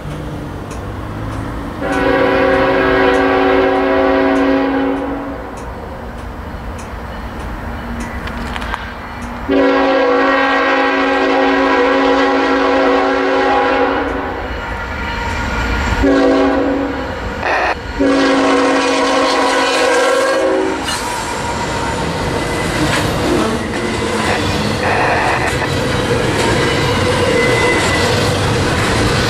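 A CSX ET44AH locomotive's air horn blowing the grade-crossing signal of two long blasts, one short and one long as the freight approaches. From about 21 seconds in, the locomotive rolls past and double-stack intermodal cars follow with a steady rumble and clickety-clack of wheels over the rail joints.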